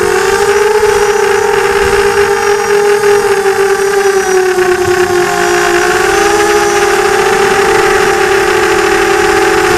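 FPV drone's motors and propellers heard from the onboard camera: a steady, loud buzzing whine whose pitch wavers slightly, dipping a little about halfway through, over a rushing hiss.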